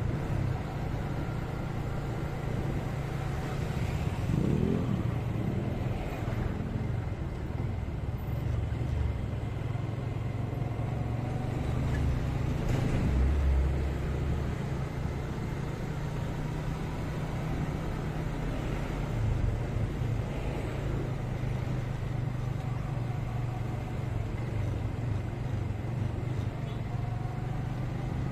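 Motorcycle engine running while riding in slow traffic, rising in pitch a few times as it speeds up, with low wind rumble and other traffic around it.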